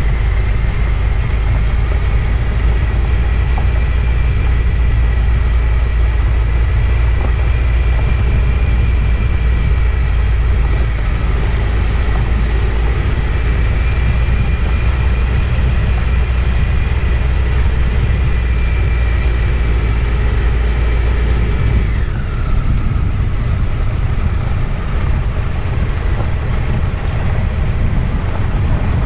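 Triumph Tiger 1200's three-cylinder engine running as the motorcycle rides along, with heavy wind rumble on a bike-mounted camera and a steady high whine. About 22 seconds in, the low rumble drops away and the whine slides down in pitch.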